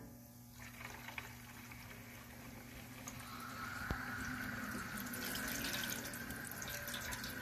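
Thin stream of ink-dyed water trickling from the bottom ball valve of an oil-water separator into a stainless steel tray: the water drained off from beneath the diesel, with the valve only partly opened. The trickle grows a little louder and takes on a steady pitch about three seconds in, with a single click near the middle.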